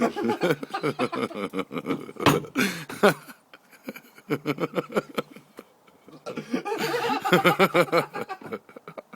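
People laughing in two long fits, with two sharp sounds about two and three seconds in.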